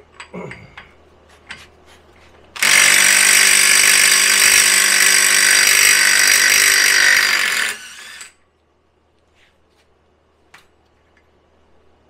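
Impact wrench hammering on the rear hub's axle nut for about five seconds, then stopping, as it spins the nut off. A few light metal clicks around it.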